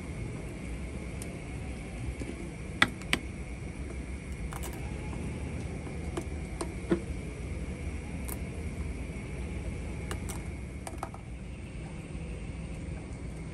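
A metal spoon clinking against an aluminium cooking pot as instant noodles are stirred, several sharp clinks with the loudest about 3 and 7 seconds in, over a steady low rumble and hiss.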